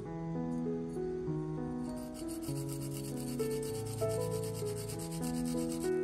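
A garlic clove grated on a small fine metal hand grater: a quick run of rasping strokes that starts about two seconds in and stops just before the end. Background music plays under it.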